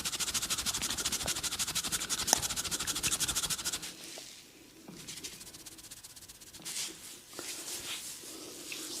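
A massaging barber's hands rubbing rapidly over skin and hair, several quick strokes a second, with one sharp click about two and a half seconds in. The fast rubbing stops about four seconds in and gives way to slower, softer rubbing with scattered small clicks.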